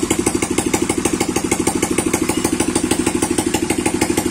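Engine driving a log-hauling winch, running steadily in fourth gear with an even, rapid beat of about ten pulses a second.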